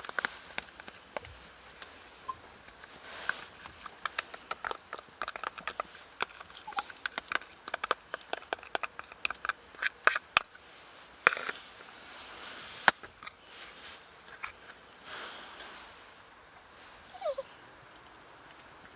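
A small dog sniffing, with a long run of sharp crackling clicks and a brief falling whine near the end.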